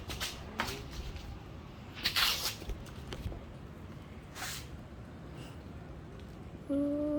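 Pruning shears snipping grapevine canes, with the rustle of cut branches, in several short separate bursts; the loudest comes about two seconds in. A person starts humming near the end.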